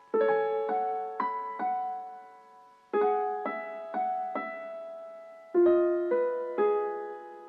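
Slow solo piano music: chords struck every few seconds with single notes in between, each left to ring and fade.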